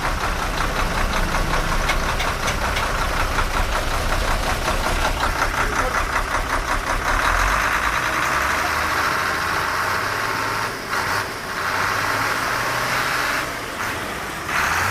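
Truck-style engine sound running with a fast, even knocking pulse. About halfway through it settles into a smoother, steadier hum, which briefly drops out twice near the end.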